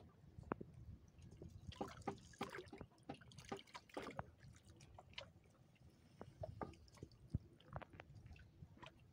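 Water splashing and dripping as a fishing net is handled and lifted in shallow water. The sound comes as scattered small splashes, with louder clusters about two seconds in and again around four seconds.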